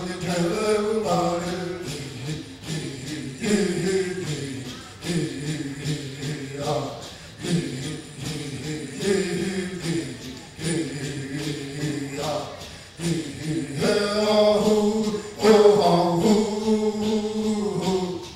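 A group of men chanting together in unison, with hand rattles shaken to a steady beat. The phrases come in waves, the fullest and loudest about two thirds of the way through.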